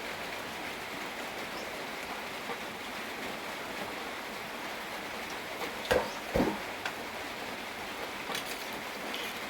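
Steady rain falling. A little past halfway there are two thumps about half a second apart.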